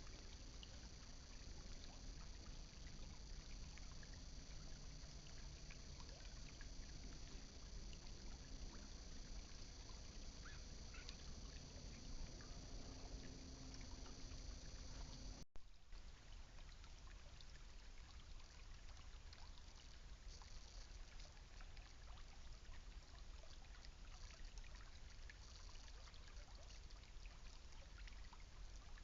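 Faint, steady hiss of trickling creek water and outdoor ambience, picked up by a trail camera's microphone. About halfway through there is a brief dropout.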